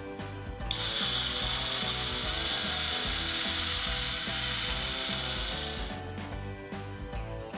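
A small electric motor whirs steadily for about five seconds, starting abruptly and fading out near the end.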